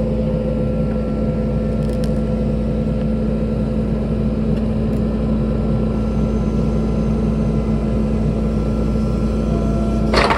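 Kubota compact track loader's diesel engine running steadily at close range while the machine inches forward on its tracks. There is a brief sharp noise near the end.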